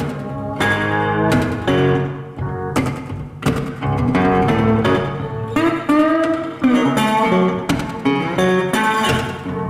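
Background music led by plucked guitar, notes struck in quick succession, some of them bending in pitch.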